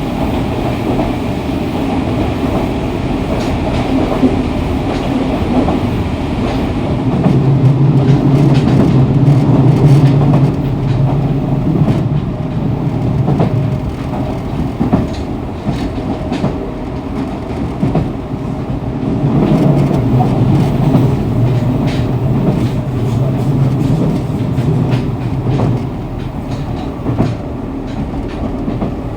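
Fukuoka City Subway 2000-series electric train running between stations, heard from the floor inside the car: steady running noise with wheels clicking over rail joints. A low hum swells twice, once about a quarter of the way in and again past the middle.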